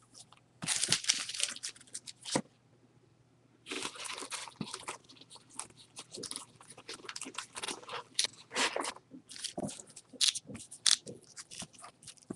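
Stacks of trading cards in plastic sleeves being handled and shuffled: crinkly rustling with small clicks. There is a burst about a second in, a short pause, then steady shuffling through the rest.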